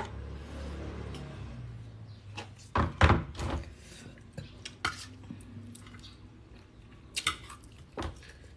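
Metal spoon and fork clinking and scraping against a stainless steel bowl of papaya salad, in scattered knocks with the loudest about three seconds in.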